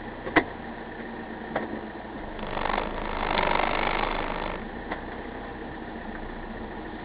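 Vehicle engine running steadily at a low idle, heard from inside the cab. A sharp click about half a second in, two fainter clicks later, and a short rise in noise around the middle.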